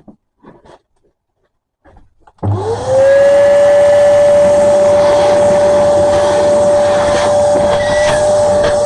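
Electric wood router switched on about two and a half seconds in: its motor whine rises quickly and levels off into a loud steady running note. A few faint knocks of handling come before it starts.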